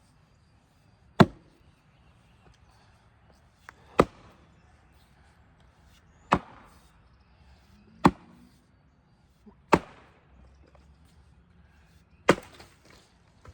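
Six heavy blows on wood, sharp and separate, about two seconds apart.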